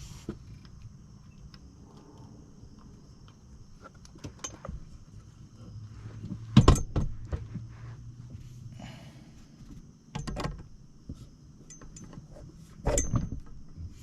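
Scattered metallic clicks and clinks with a few sharper knocks as a truck's gear shift lever is fitted onto the shift shaft and its mounting nut and bolt are handled. The loudest knock comes about seven seconds in, with two more around ten seconds and near the end.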